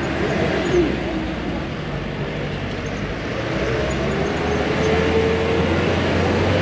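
Bus engine running, heard from inside the passenger cabin over road noise. It grows louder about four seconds in, with a whine that rises and falls.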